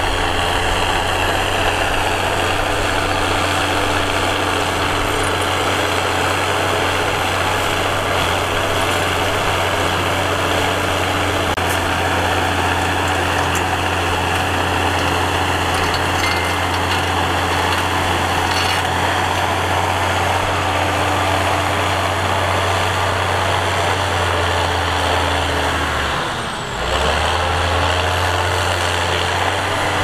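John Deere tractor's diesel engine running steadily under load while pulling a disc harrow through dry soil, a constant low drone. Near the end its note and level sag briefly, then come straight back.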